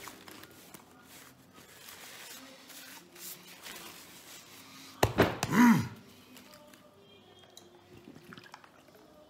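A man chewing a mouthful of food, with one loud groan of relish about five seconds in that rises and falls in pitch and lasts under a second. Faint music plays in the background.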